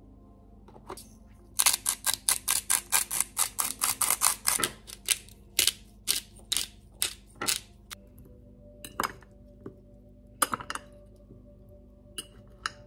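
Hand-twisted salt and pepper grinders working: a fast run of sharp clicks, then slower single clicks, then a few scattered clicks near the end. Quiet background music plays underneath.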